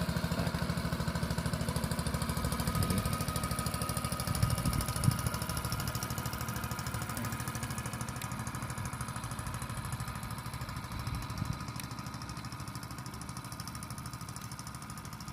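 Small boat's engine running with a fast, steady chugging that slowly fades as the boat moves away.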